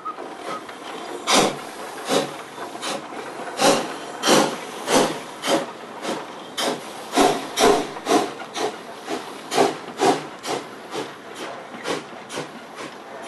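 Narrow gauge steam locomotive working, its exhaust chuffing in regular beats over a steady hiss of steam. The beats start about a second in and come gradually faster as the engine picks up speed.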